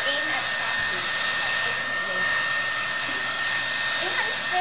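Handheld hair dryer blowing steadily while drying a dog's fur: an even rush of air with a steady high whine.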